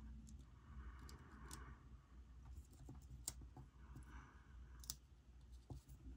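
Faint handling of a paper sticker: fingers pressing and smoothing it onto a planner page. There are a few light, sharp clicks and two soft brushing sounds, about a second in and about four seconds in.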